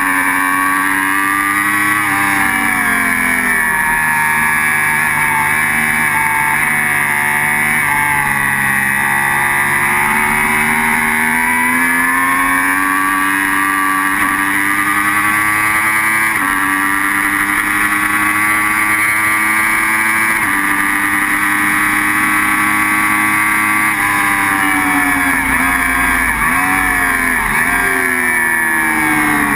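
Sport motorcycle engine at racing speed, heard from an onboard camera with wind rush over the microphone; the pitch climbs and falls through the gears, and near the end drops with a few quick blips as the bike slows for a corner.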